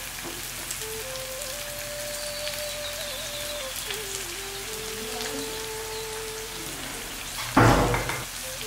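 Hot oil sizzling steadily in a frying pan as onions, curry leaves and pandan leaves temper in it, an even rain-like hiss. A brief loud burst stands out near the end.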